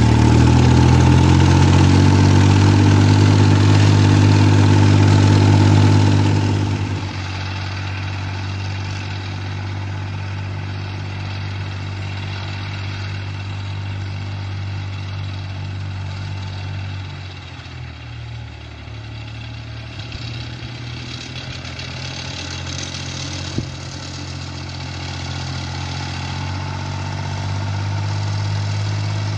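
Fiatagri 60-66's three-cylinder Iveco diesel engine running steadily under mowing load. It is loud and close for about the first six seconds, then much quieter and farther off, growing louder again near the end as the tractor comes closer.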